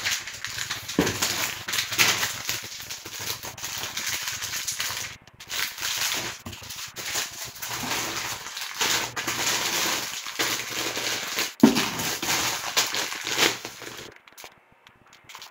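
Plastic food packages crinkling and rustling as they are handled in a cardboard box, with dry beans rattling in their bags and a few knocks. A sharp thump near the end is the loudest sound.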